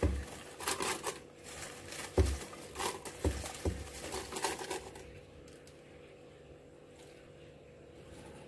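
Cut pandan leaf pieces tipped from a stainless steel bowl into a plastic blender jug: dry rustling of the leaf pieces, with four dull knocks.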